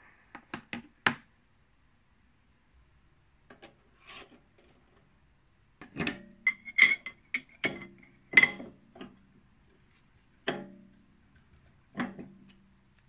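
Small metal clicks from brass parts being handled, then a run of metal clinks and knocks with brief ringing as a spanner works the nut of a mini lathe's collet chuck holding brass rod.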